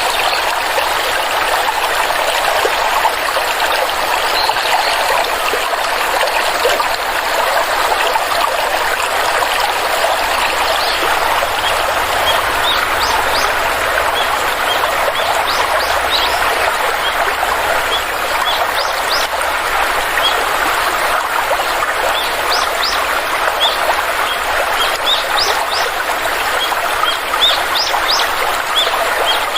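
Stream water flowing and trickling steadily, with birds chirping over it in short, quick calls from about a third of the way in, growing busier toward the end.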